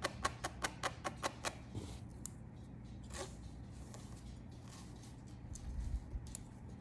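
Tweezers plucking hairs from a wig's lace frontal: a quick run of small clicks, about four a second, for the first second and a half, then a few scattered clicks.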